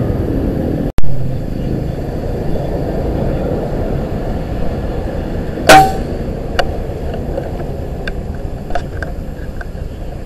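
Steady low rumble, with one loud, sharp crack about six seconds in and a few faint ticks after it.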